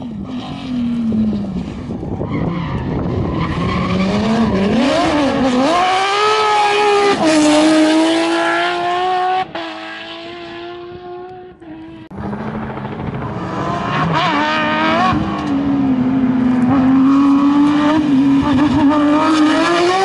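Porsche 997 GT3 rally cars' flat-six engines at full throttle, the note climbing in pitch and dropping back at each upshift. The sound breaks off abruptly twice in the middle, and a second car's engine then runs long at high revs.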